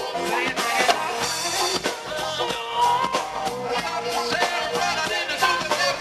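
Live reggae band playing over outdoor stage speakers: drum kit and electric guitar keeping a steady beat, with a man singing into a microphone.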